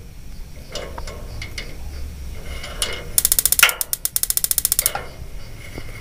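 Electronic spark igniter of a gas water heater firing at its burner electrodes: a rapid, even train of sharp ticking sparks about three seconds in, lasting around two seconds, after a few scattered clicks. The sparking shows the ignition stage is working.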